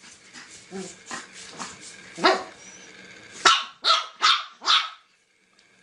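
Pug puppy barking in short, sharp yaps while playing, with a quick run of four barks about three and a half seconds in; then it stops abruptly.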